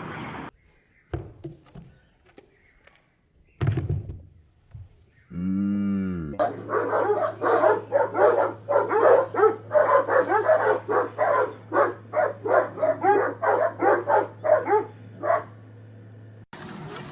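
A dog barking rapidly and over and over for about ten seconds, two to three barks a second, over a steady low hum. A few scattered knocks come before it.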